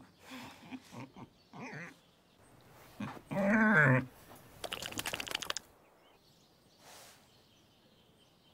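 An animal's cries: faint short sounds at first, then a loud cry with a wavering pitch a little over three seconds in, lasting under a second, followed by a quick rattling series of pulses about a second long.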